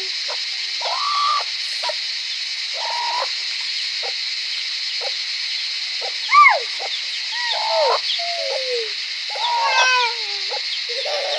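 Domestic chickens clucking, with several squawks in short bursts; the loudest squawk comes about six seconds in. Under them runs a steady, high-pitched drone of insects.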